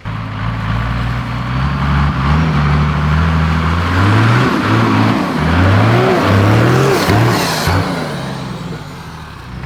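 Toyota 45 Series Landcruiser ute's engine working hard off-road, held steady at first, then revved up and down in several surges about halfway through before easing off near the end.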